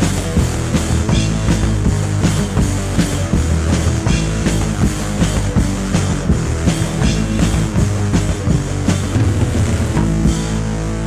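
Death metal demo recording: fast drumming under thick distorted guitars. About ten seconds in, the drumming stops and a sustained chord rings on.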